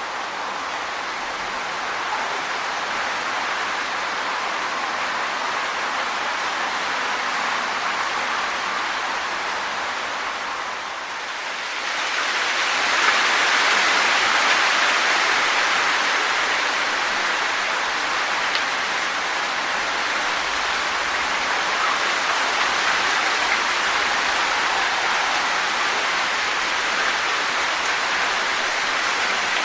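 Wind blowing through trees, rustling the leaves in a steady hiss, with a dip about eleven seconds in and then a stronger gust that stays up.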